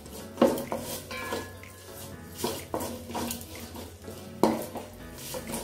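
Wooden spatula scraping and knocking against a stainless steel pot while stirring julienned ginger frying in oil, with several strikes, the loudest about half a second in and again near the end.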